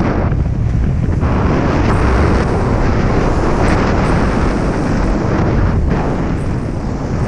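Loud rush of wind buffeting the microphone from skiing downhill at speed, with the hiss of skis sliding over groomed snow.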